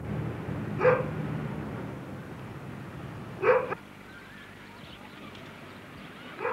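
Short, sharp animal calls, like barks: two of them, a few seconds apart, and a third starting at the very end, over a low steady hum that drops away about halfway through.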